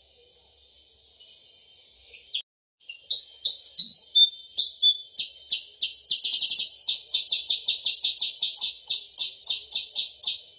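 Recorded song of a kutilang sutra (percang) played as a bird lure: a fast series of sharp, high chirps, several a second, packed most tightly around the middle. A steady high hiss fills the start, and the sound cuts out briefly before the chirping begins.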